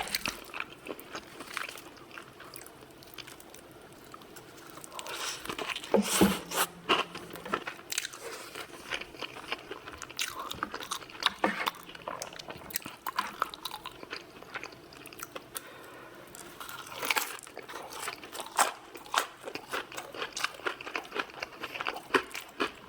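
Close-miked mukbang eating: crunchy food being bitten and chewed in irregular crisp crunches and mouth clicks, thickest about six seconds in and again from about seventeen seconds.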